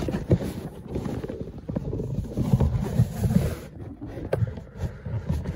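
Plastic packaging being handled and worked loose close to the microphone: a low rumble of handling noise with many short clicks and knocks.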